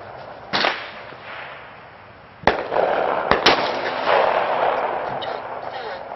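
Three handgun shots of .40 calibre ammunition, about half a second, two and a half seconds and three and a half seconds in, each sharp crack followed by a long echo.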